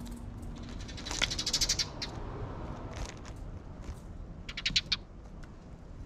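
Eurasian tree sparrows chirping in two rapid bursts of sharp, high calls, the louder about a second in and a shorter one near the end, with faint scattered clicks between.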